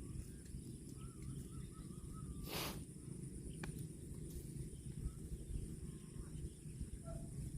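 Farm-field ambience: a steady low rumble with a thin steady high insect hum and faint bird chirps in the first couple of seconds. A short hiss, like a sharp breath, comes about two and a half seconds in.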